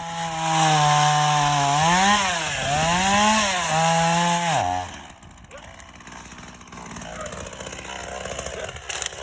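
Gas chainsaw engine running, its pitch rising and falling twice as the throttle is worked, then dropping sharply about four and a half seconds in as the engine winds down; quieter after that.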